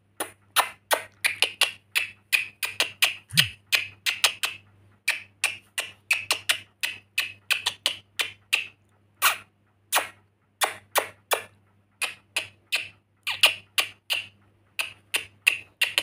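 Pet lorikeet making a long run of short, sharp clicks, irregular and a few a second.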